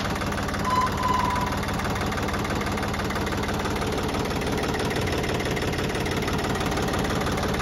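Ford 1710 compact tractor's diesel engine idling steadily.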